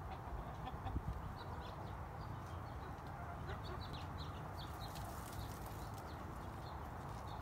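Backyard chickens making soft clucking sounds while they preen, with many short high chirps scattered throughout, over a steady low background rumble.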